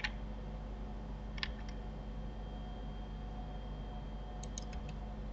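Sparse clicks of a computer mouse and keyboard: one at the start, two about a second and a half in, and a quick run of four or five near the end, over a steady low hum.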